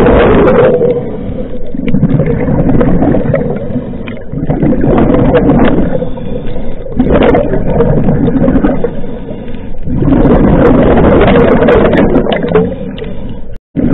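Scuba diver breathing through a regulator underwater: loud rushes of exhaled air bubbling out, alternating with quieter inhalations every two to three seconds. The sound cuts out briefly near the end.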